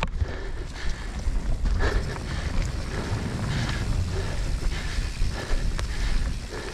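Mountain bike rolling down a dirt trail, heard from a helmet-mounted action camera: wind rumbling on the microphone over tyre noise, with scattered knocks and clicks from the bike rattling over the ground.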